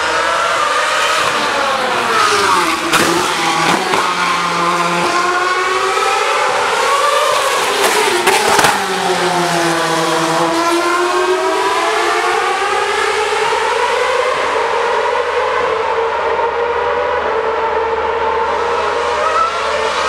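2013 Formula 1 cars' 2.4-litre naturally aspirated V8 engines screaming at high revs as they run past. The pitch drops twice, about two and about eight seconds in, then climbs again as they power away, with a few sharp cracks among the drops.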